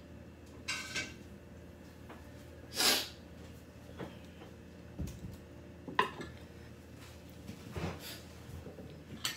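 Two noisy bursts of breath through a person's nose, a short one about a second in and a loud one about three seconds in. Then come a few sharp clunks and clinks as a glass serving bowl is set down on a wooden table among the plates.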